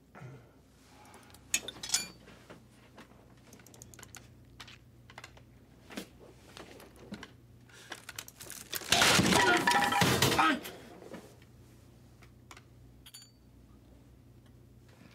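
Small metal clicks and scrapes from a wrench turning the screws of a halo brace as they are backed out of the skull. About nine seconds in comes a loud vocal outburst lasting about a second and a half.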